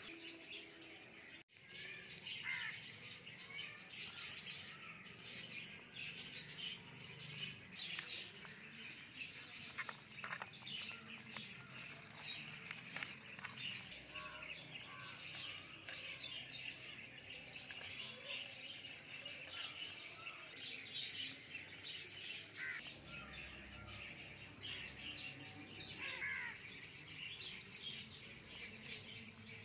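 Small birds chirping with many short, high calls throughout, with occasional light clinks of a tiny metal spoon in a miniature pan.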